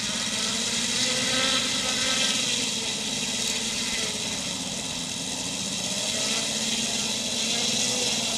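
Two Saito FG-19R3 three-cylinder petrol radial engines on a large model B-25 running at low throttle while it taxis. The pitch rises and falls slightly.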